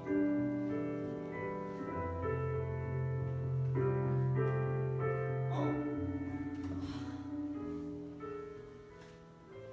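Slow instrumental scene-change music of held piano chords that change every second or two, fading down near the end.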